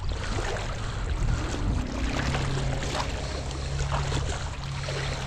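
Chest waders sloshing and swishing through shallow creek water as a person wades, with small irregular splashes. A faint, steady low hum sits underneath from about two seconds in.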